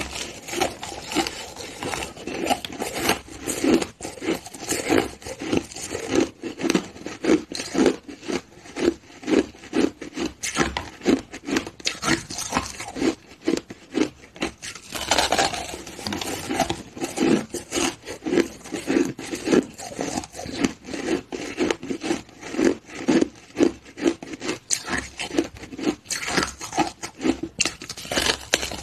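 Purple frozen 'ice flower' ice being bitten and chewed close up: a steady run of crisp crunches, two or three a second, with louder crackling bites about halfway through and near the end.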